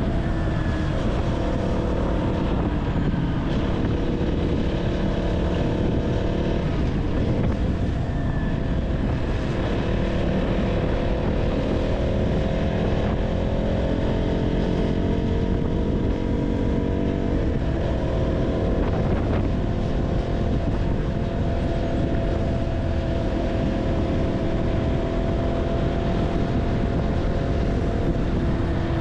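KTM Duke 200's single-cylinder engine running while riding through city traffic, its pitch drifting gently up and down with the throttle over a steady low rumble.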